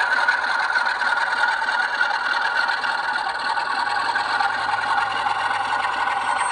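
Bachmann Class 47 model locomotive's sound decoder playing its recorded diesel engine sound through the model's small onboard speaker, running steadily as the loco is set to pull away. The recording is of the class's Sulzer twin-bank diesel.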